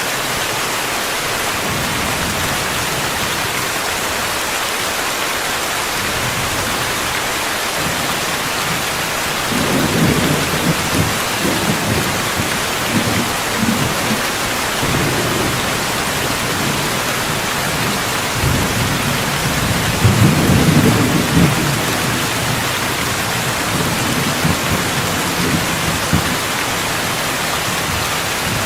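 Steady heavy rain hiss with rolling thunder: one low rumble swells up about ten seconds in, and a louder one comes around twenty seconds in, with smaller grumbles after it.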